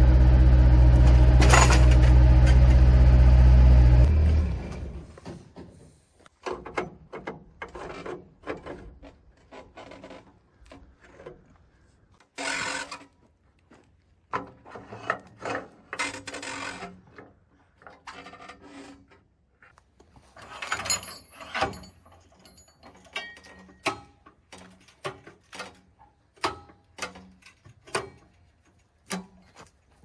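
A loader's engine running steadily, stopping abruptly about four seconds in. After it come scattered knocks, clanks and scrapes of an eastern red cedar log being set on a bandsaw mill's steel bed and clamped in place.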